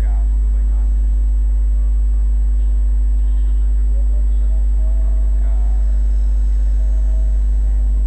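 Steady low rumble of night street ambience with a constant hum, and faint distant voices now and then.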